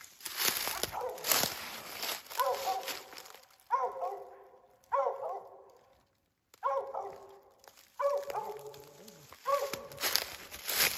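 Original Mountain Cur barking repeatedly, about seven sharp barks spaced a second or so apart. Footsteps crunch through dry leaves at the start and again near the end.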